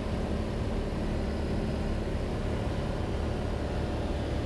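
Cessna 182's piston engine and propeller droning steadily in flight, heard from inside the cabin, low and muffled with little treble.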